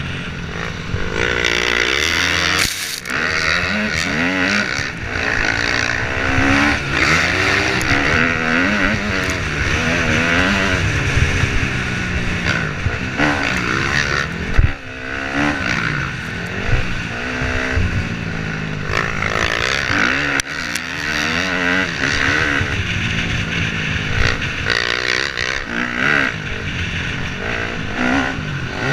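KTM 250 dirt bike engine revving up and down over and over as the rider accelerates and backs off through jumps and corners. The pitch rises and falls every second or two over a steady hiss.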